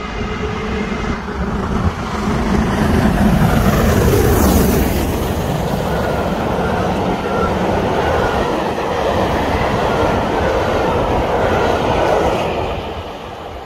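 Steam locomotive and its train of coaches passing close at speed. The sound builds to a peak about four seconds in as the engine goes by, with a falling pitch. Then the coaches' wheels clatter on the track for several seconds and fade near the end as the last coach passes.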